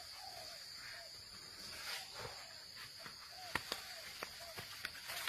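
Jungle ambience: a steady high-pitched insect drone, with soft short chirping calls now and then. In the second half come a few sharp snaps of twigs and leaves underfoot.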